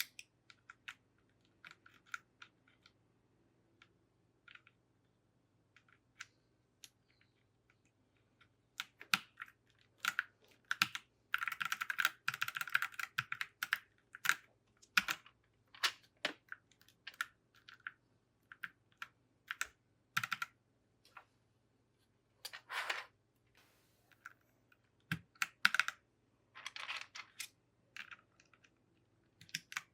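Plastic keycaps clicking onto a mechanical keyboard's switches as they are pressed back on: sharp clicks, sparse at first, then coming in quick flurries about a third of the way in and again near the end.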